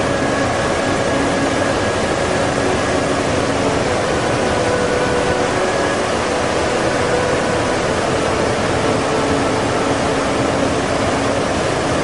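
Steady rushing of water over rocks, a loud unbroken wash of noise, with faint held notes of soft music underneath.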